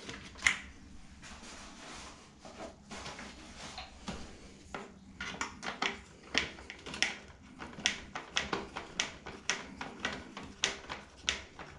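Sharp plastic clicks and taps from handling a bathroom exhaust fan housing and working its ceiling-mounting clips loose. The clicks are scattered at first, then come closer together, about two or three a second, in the second half.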